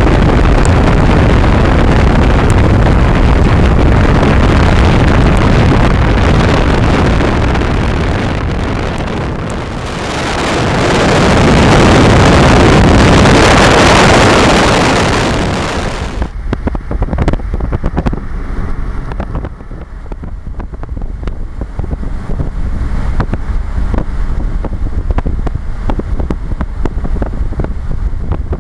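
Wind rushing over a microphone held out of a moving car's window, together with tyre and road noise. The noise rises to a peak and then changes abruptly about halfway to a lower, duller, gusty buffeting.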